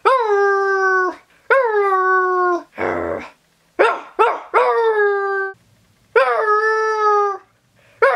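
A person imitating a dog's howl with their own voice: a series of short howls about a second long, each sweeping up quickly and then held on one pitch. About three seconds in there is a breathy huff, followed by two quick yips before the next howl.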